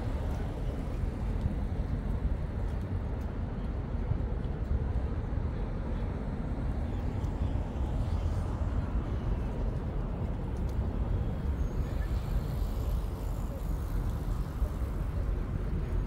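Steady low outdoor rumble with no distinct events, of the kind given by distant road traffic.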